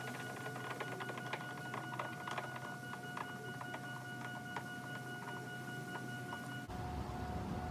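Rapid, irregular clicking and ticking over a steady high hum, which changes abruptly about a second before the end.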